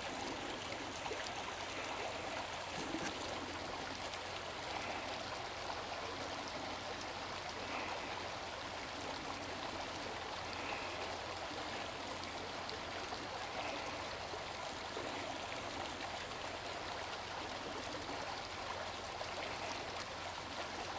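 Steady, unbroken rush of river water flowing.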